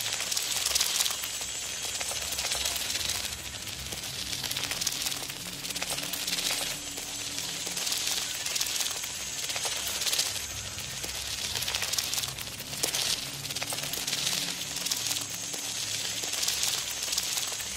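Papery rustling and crinkling over a steady hiss, rising in irregular flurries every second or two: a sound effect offered as butterflies fluttering their wings.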